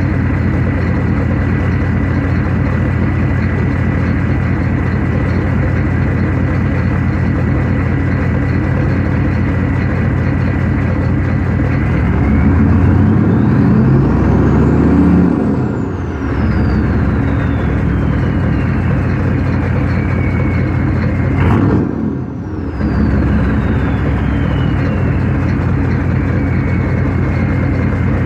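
Straight-piped 6.5-litre Detroit Diesel turbo V8 of a 1994 Chevrolet Silverado K2500, warmed up and idling with a steady turbo whistle. About twelve seconds in it is revved and the turbo whistle climbs steeply, then winds slowly back down to idle; a second quick blip comes about twenty-one seconds in, followed by another long falling whistle.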